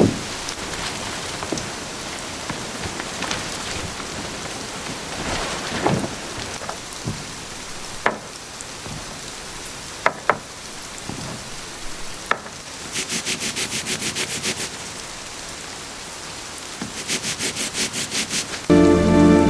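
Steady rain with a few sharp knocks scattered through it. Twice in the second half comes a rapid, even pulsing rasp, about six pulses a second, lasting a second or two each time. Music begins just before the end.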